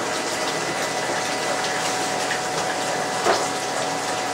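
Water running steadily through a reef aquarium's plumbing, with the faint steady hum of a pump. A short sharp knock or splash sounds about three seconds in.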